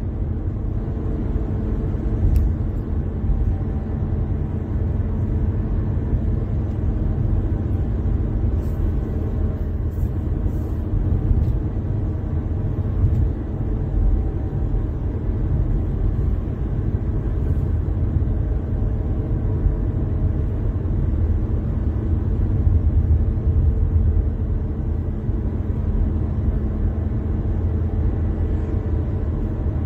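Steady low rumble of a car driving at road speed: tyre and engine noise.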